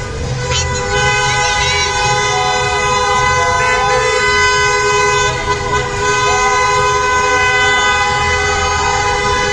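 Many car horns honking at once in a celebration, several steady horn tones held and overlapping throughout, with scattered shouts above them.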